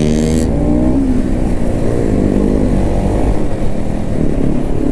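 Motorcycle engine running under the rider in traffic, its pitch dipping about a second in and then rising and falling with the throttle.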